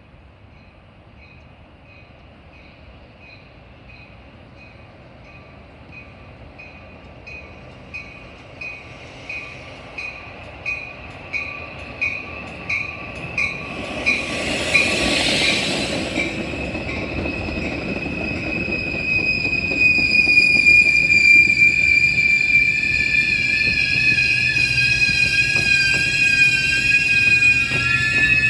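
Metra bi-level commuter train arriving. Its bell rings steadily at about one and a half strokes a second, growing louder as it approaches, and a loud rush follows as the cab car passes about halfway through. Through the second half the wheels squeal with high, slightly wavering tones as the train slows along the platform, over a low engine drone.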